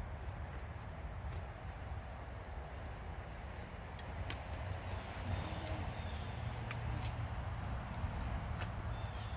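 Outdoor ambience: a steady high-pitched insect chirring over a low wind rumble, with a few faint clicks.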